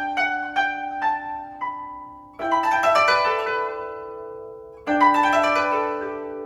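Solo koto: a few single plucked notes, then about two seconds in a rapid sweep across the strings into a chord that rings and slowly fades, with a second sweep near the end.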